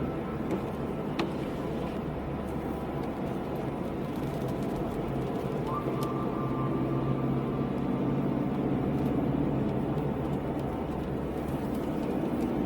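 Car driving, with a steady engine hum and road noise. A faint steady whine comes in about halfway through.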